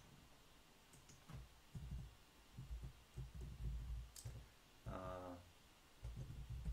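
Typing on a computer keyboard: a run of irregular, dull keystroke taps that starts about a second and a half in.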